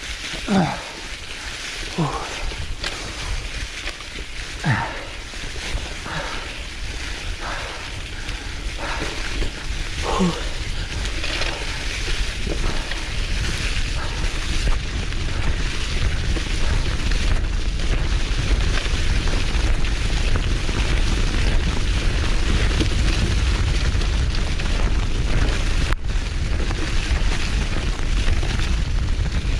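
Wind buffeting the microphone and the tyres of a Canyon Grizl gravel bike rolling over a leaf-covered forest trail, getting louder and denser from about a third of the way in as speed picks up. In the first part, short sounds sliding down in pitch come about once a second.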